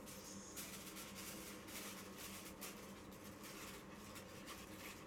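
Aluminium foil crinkling faintly as it is wrapped and pressed over the end of a cardboard tube: a run of quick, small rustles starting about half a second in.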